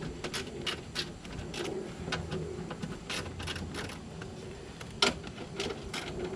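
Irregular clicks and taps of a hand tool working the speaker fasteners inside a pickup truck door, with one louder knock about five seconds in.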